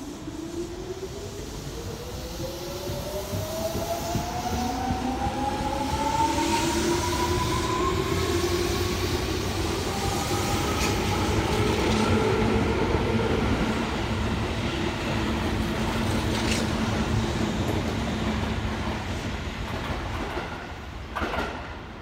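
Tobu 9000 series electric train (set 9101F) pulling away from a station: the traction motor whine climbs steadily in pitch as it gathers speed, with a few clacks of wheels over rail joints. The sound fades near the end as the last car passes, with a final burst of clatter.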